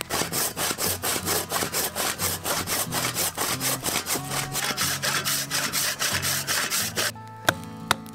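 Hand-turned twist-bit auger boring into a log of hard, dry wood, rasping in a steady rhythm of about four strokes a second. It stops about seven seconds in, and two sharp axe chops on the wood follow near the end.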